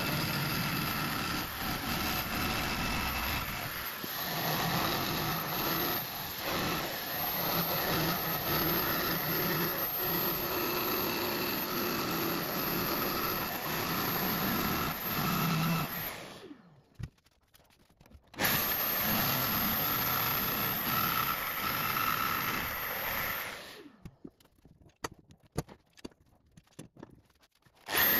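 Jigsaw sawing a curve through thick hardwood, running steadily under load. It cuts out about 16 seconds in for two seconds, then again about 23 seconds in, leaving only a few faint clicks until it starts up again at the very end.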